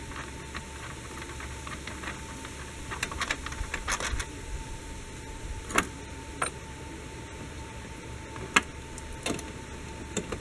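Hand work in a car's engine bay: small clicks and light rattles of tools and parts being handled, bunched together a few seconds in, then several separate sharp clicks, over a faint steady hum.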